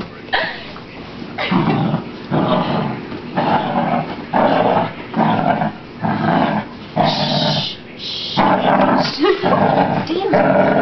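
Beagle growling in a run of short growls, about one a second, while tugging at a towel being used to dry her.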